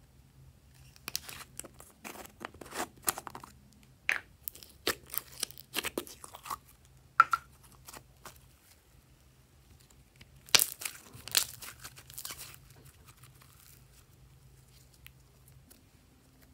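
Glossy red slime squeezed and kneaded by hand, giving sticky crackles and small air-bubble pops in quick clusters, twice: through the first half and again around two-thirds in.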